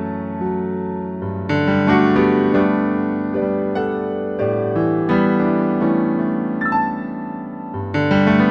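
Piano playing slow, full chords with a few higher melody notes, a new chord struck about every three seconds. It is an instrumental passage of a worship song, with no singing.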